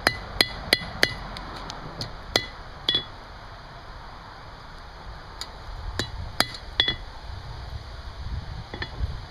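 Hand hammer striking hot steel on an anvil, each blow giving a ringing metallic ping as the forged bolt is straightened. There is a quick run of four blows, then two more, then a pause of over two seconds, another run of four, and one faint blow near the end.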